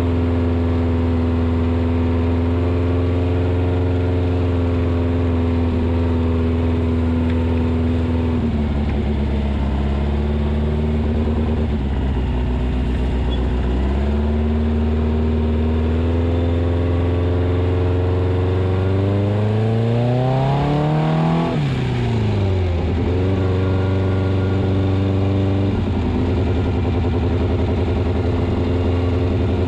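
Engine of a VW-powered rock crawler buggy running under way: steady at first, dropping in pitch about eight seconds in, then revving up gradually over several seconds to a peak a little past twenty seconds in, falling off sharply and settling back to a steady run.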